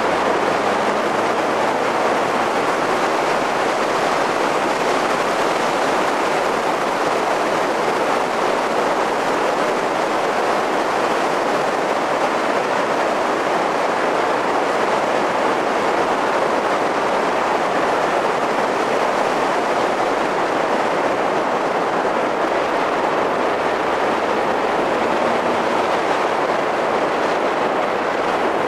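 Steady rush of wind and road noise from a car driving at speed, picked up by a camcorder microphone mounted on the car's roof, even and unchanging throughout.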